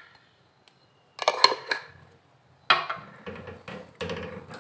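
A silicone spatula stirring chicken pieces in a nonstick wok, scraping and knocking against the pan in several uneven strokes from about halfway in. A brief clatter of utensils comes about a second in.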